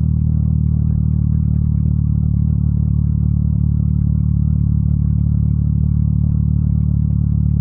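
Yamaha MT-09 Tracer motorcycle's three-cylinder engine running at a steady cruising speed on the road: an even, low drone with no change in revs.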